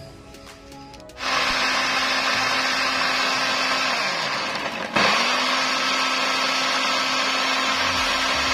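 Electric blender grinding shallots, garlic and spices into a wet paste. The motor starts about a second in. Its pitch sags and it winds down around four seconds in, then it starts again abruptly and runs steadily.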